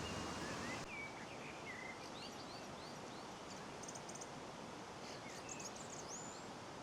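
Small songbirds chirping and calling in short repeated phrases over a steady rushing outdoor background.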